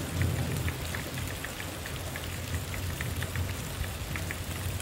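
Steady rain falling, with a low rumble under it and scattered light ticks of single drops.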